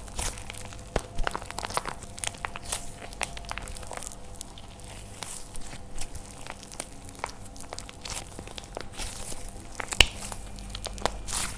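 Dried painted plaster clay being crushed by hand: a steady run of irregular crackles and crunches, with one louder sharp crack about ten seconds in.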